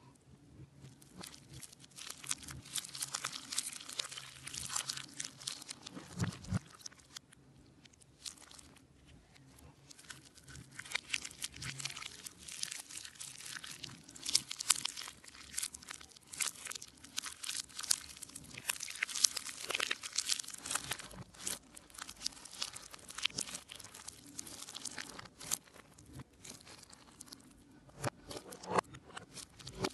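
Sticky clear slime mixed with Flarp noise putty being stretched and squished by hand, giving wet crackling and popping clicks in bursts with a couple of short pauses.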